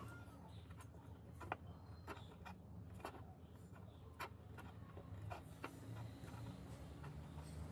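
Light, irregular clicks and ticks of thin steel wire being wound tight around a steel rod spear shaft, over a low steady hum.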